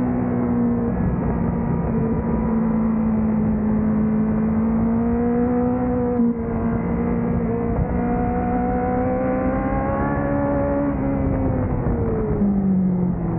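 Honda CBR1000RR-R Fireblade's inline-four engine running hard on track, heard from on board. Its pitch climbs under acceleration, breaks briefly about six seconds in, climbs again, then drops near the end as the revs come down.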